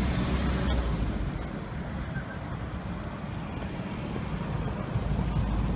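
Steady low rumble of street traffic, with no distinct events standing out.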